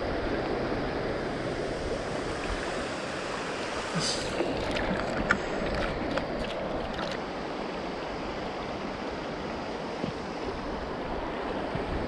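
Steady rush of river water flowing over rocks, with a few light clicks about four to five seconds in.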